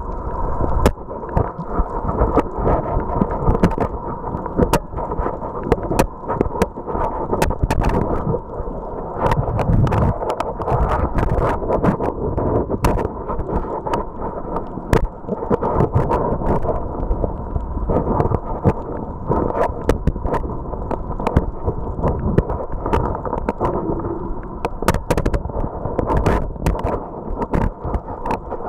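Underwater reef sound picked up by a camera in a waterproof housing: a muffled low rumble with a steady hum, and many scattered sharp clicks.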